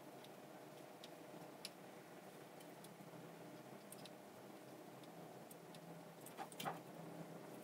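Near silence while pins are hand-soldered on a circuit board: a faint steady hum with a few soft, irregular ticks, and a couple of slightly louder clicks near the end.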